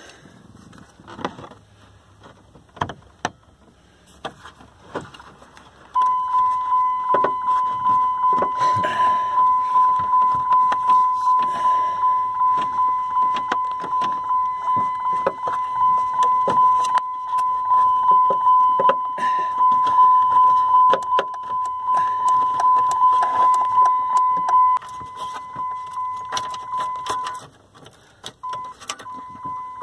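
Dodge Ram 2500's dashboard warning chime sounding one steady high beep, with the key on and the instrument cluster powered up for a test. The beep starts about six seconds in and holds for about twenty seconds, stops briefly and comes back near the end. Light clicks of hands on the dash parts come before it.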